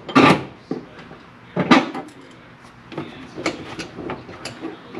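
Knocks and clunks from fitting a battery relocation box and its mounting hardware in a car's trunk. Two louder knocks come at the start and just under two seconds in, followed by a run of lighter taps.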